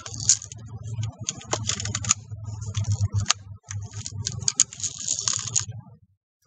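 Daisy Red Ryder lever-action BB gun being worked by hand between shots: a run of sharp metallic clicks and short rattles over a low rumble, stopping about six seconds in.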